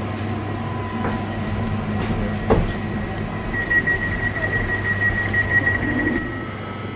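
Interior of a Newag Impuls 2 (31WEba) electric multiple unit standing at a platform: a steady low electrical hum, a sharp clunk about two and a half seconds in, then a fast high-pitched beeping for about three seconds from the door signal as the doors stand open.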